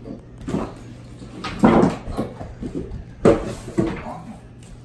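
Several hollow knocks and thumps on a wooden OSB subfloor as workers step and kneel on it, the two loudest about a second and a half apart near the middle.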